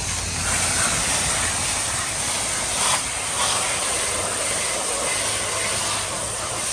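Pressure washer spraying: a steady loud hiss of the water jet hitting a surface, with the washer's motor humming low underneath.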